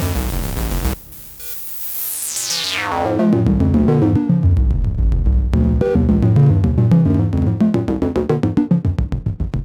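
Dreadbox Dysmetria analog synthesizer playing a sequenced pattern that drops out about a second in. A high pitch then sweeps steeply down, and a fast run of repeating notes builds back, pulsing about five times a second near the end.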